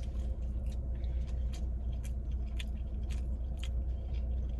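Close-up chewing and biting of food, with irregular wet mouth clicks, over the steady low hum of a car idling.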